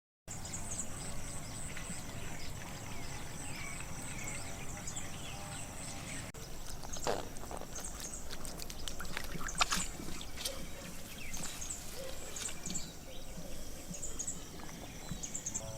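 Animal calls over a steady background noise: short, high chirps repeating again and again, and lower short calls, with a few sharp knocks in the middle.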